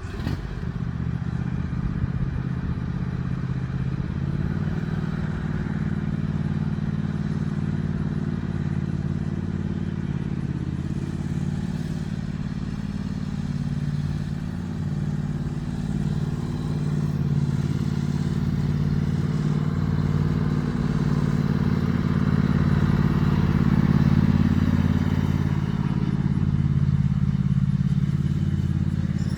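An engine running steadily at a constant low pitch, growing a little louder in the second half.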